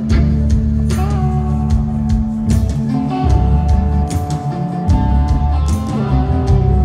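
Live rock band playing an instrumental passage: an electric guitar holds long notes, bending them up, over a heavy bass line and regular drum and cymbal hits.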